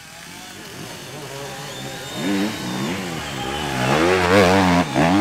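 Enduro motorcycle engine revving, its pitch rising and falling over and over and growing louder, loudest near the end.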